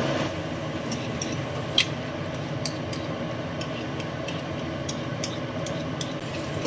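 Vegetable peeler scraping down a carrot in a few short strokes, with one sharper click about two seconds in, over a steady background noise.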